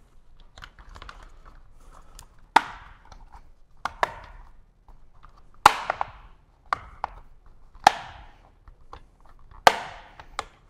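Black plastic wiring-chase cover being pressed and snapped back into place along a Harley-Davidson touring motorcycle's frame: a series of sharp plastic clicks and knocks, spaced a second or two apart.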